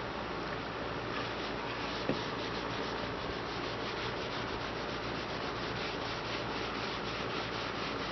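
A rag rubbing metal conditioner onto a sanded sheet-metal patch-panel seam: a steady scrubbing with quick, regular back-and-forth strokes, about four or five a second. A single light knock sounds about two seconds in.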